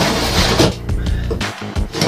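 Background music.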